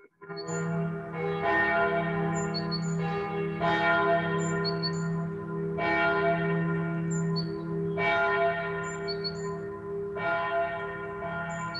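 Church bells ringing, striking about once a second, each stroke overlapping the last over a steady low hum. There is a brief dropout right at the start.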